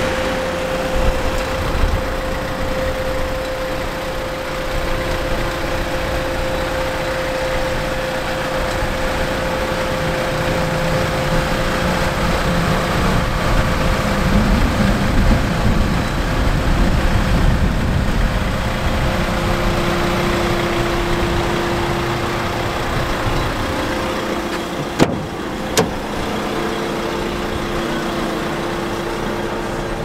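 Renault Master 135 dCi van's diesel engine idling steadily, with two sharp clicks close together near the end.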